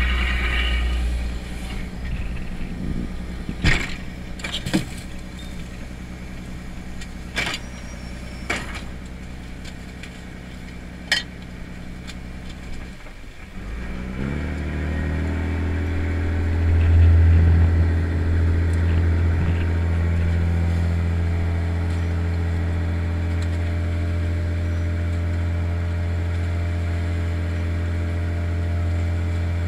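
Crab boat's engine and hydraulic pot hauler running, with several sharp knocks in the first half. A little past the middle the engine note rises and settles into a steady low drone, loudest a few seconds later.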